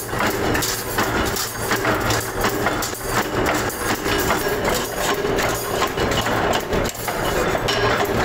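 Metalworking machinery running in a factory: a steady mechanical hum with a dense, irregular clatter of metal knocks and clicks.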